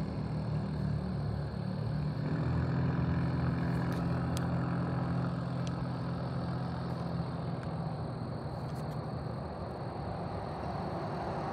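A car engine running nearby, a steady low hum that builds about two seconds in and fades away over the last few seconds, over the hiss of road traffic.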